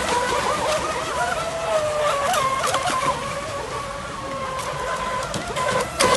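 Radio-controlled boat running across a pond, its motor giving a steady high whine that wavers in pitch as the throttle changes. A short loud clatter comes near the end.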